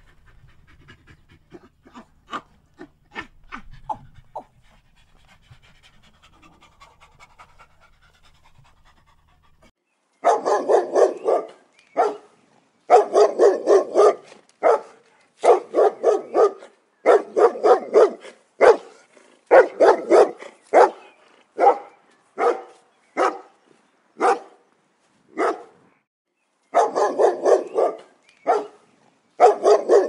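A small terrier barking over and over, in quick bouts of several barks a second with some single barks in between. It starts about a third of the way in, after a few seconds of faint short clicks and chirps.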